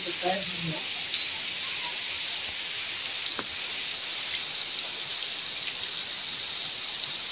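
Heavy rain falling steadily on a waterlogged courtyard, an even hiss with a few faint drop ticks.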